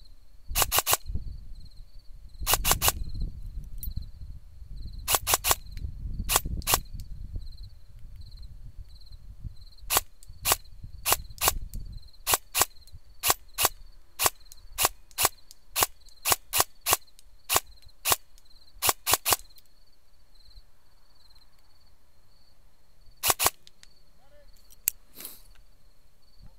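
Airsoft guns firing: about thirty sharp shots, in short clusters at first, then a steady string of roughly two shots a second, with a last pair near the end. Low rustling and handling noise sits under the first half.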